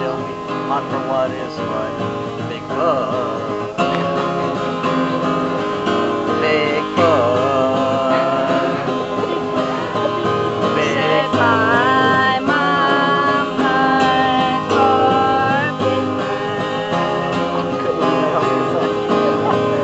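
Acoustic guitar strummed steadily while a man sings the melody, his held notes wavering and sliding in pitch.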